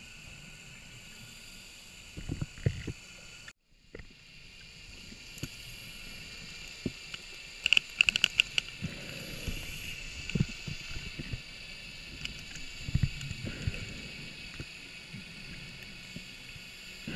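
Muffled underwater knocks and low rumbles picked up through a camera housing as a scuba diver handles a line reel, with a quick run of sharp clicks about eight seconds in. The sound drops out briefly just before four seconds in.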